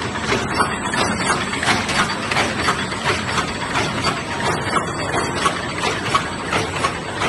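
Paper box erecting machine running, its forming mechanism making a steady, rhythmic clatter of quick repeated clicks over a continuous machine hum.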